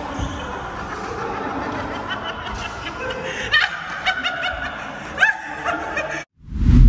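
People laughing and snickering over the hall's chatter. Near the end the sound cuts out abruptly and a sudden deep boom hits, with a low ringing that carries on after it.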